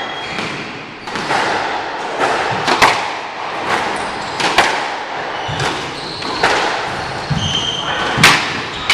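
Squash rally: the ball is struck by the rackets and smacks off the court walls in a run of sharp cracks and thuds, loudest about three seconds in and again near the end. There are brief high squeaks between the shots, typical of court shoes on the hardwood floor.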